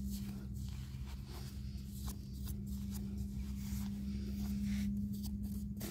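Gloved hand scraping and scooping crumbly soil away from the base of a cassava plant and its roots, making irregular scratching and crumbling rustles. A steady low hum runs underneath.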